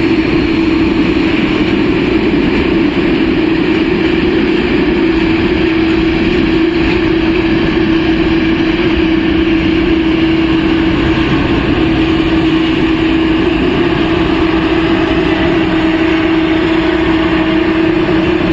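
Jet aircraft engines running steadily at low power: a constant loud drone with an unchanging hum in it.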